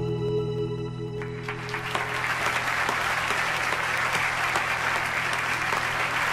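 A held musical chord dies away over the first second or two as a large audience breaks into applause, which swells and then continues steadily.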